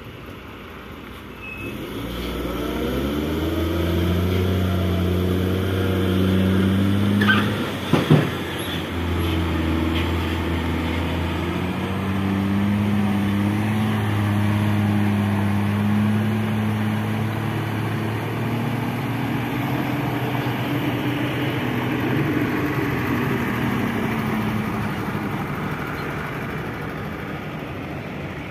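Hino dump truck's diesel engine running as the truck drives through mud, its pitch rising in the first few seconds and then holding steady with slight ups and downs. A couple of sharp knocks come about seven to eight seconds in.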